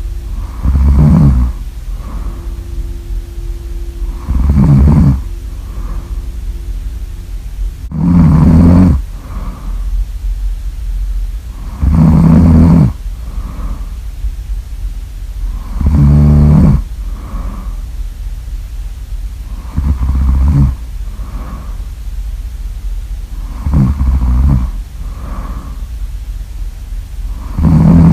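A person snoring loudly and regularly: a heavy rasping snore on each in-breath about every four seconds, each followed by a softer out-breath.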